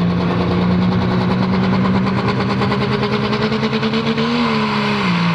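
Diesel 4x4 pickup truck engine at high revs, hooked to a pulling sled under heavy load, with a rapid even pulsing. Its pitch climbs slowly, then drops about five seconds in.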